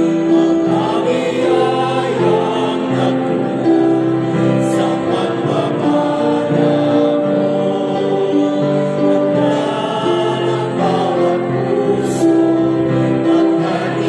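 Church choir of men and women singing a hymn together, holding long sustained notes that move from pitch to pitch.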